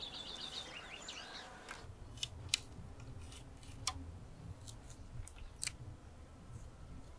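A bird chirping in short repeated notes for the first couple of seconds, then scattered single sharp clicks over a low rumble.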